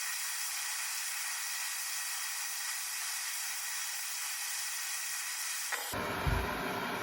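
Gas torch hissing steadily, then catching with a click and a soft low thump near the end and running on with a fuller, lower roar while it heats a branding iron.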